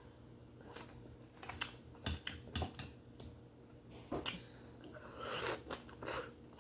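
A person eating steamed conch: scattered sharp clicks and taps of cutlery against dishes, and a wet stretch of chewing about five seconds in.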